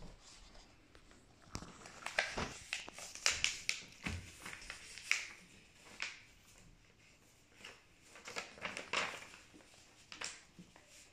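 A sheet of paper being folded in half and creased by hand: irregular rustling and crinkling in short spells, with a few sharp crackles.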